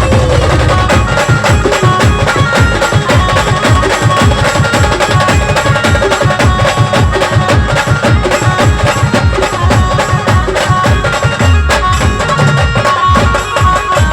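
Indian band music: fast, dense drumming under held melody notes from the band's instruments.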